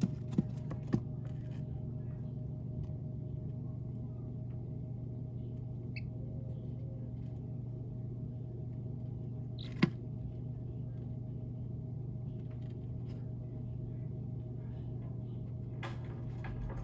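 A steady low hum runs throughout. A few sharp clicks come near the start and one about ten seconds in. A single faint, short, high baby-chick peep sounds about six seconds in.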